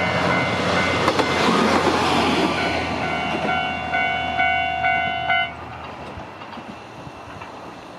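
Japanese level-crossing electronic warning bell ringing its repeated 'kan-kan' tone while a Nagara Railway diesel railcar passes. The train noise swells and fades over the first few seconds. The bell cuts off about five and a half seconds in, as the crossing clears.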